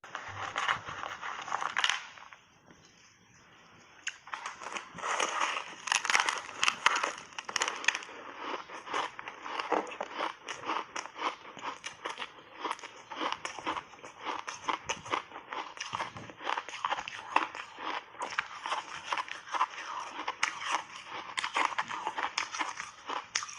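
Crunchy block ice being bitten and chewed in big bites, a dense run of crackling crunches with a short lull about two seconds in.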